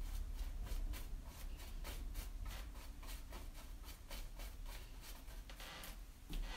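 Paintbrush dabbing and stroking primer onto the bed canopy's molding: quick, even scratchy brush strokes, about three or four a second, growing fainter about halfway through.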